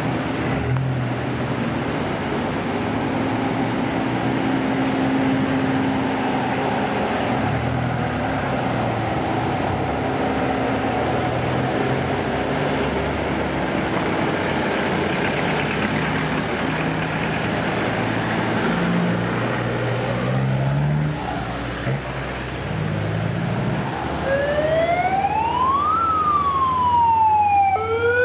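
A line of off-road vehicles drives slowly past, engines running over a steady hiss of tyres on a wet road. In the last four seconds a loud siren-like wail glides up and down in pitch; it comes from the horn loudspeaker fitted to a passing VW T3 van.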